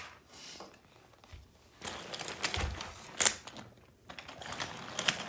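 Plastic toy trains and toy cars clicking and clattering as they are moved about, with a sharp click a little after three seconds in.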